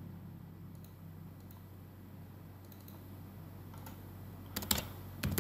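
Computer keyboard keystrokes: a few faint clicks early on, then a quick run of sharper key clicks near the end, over a low steady room hum.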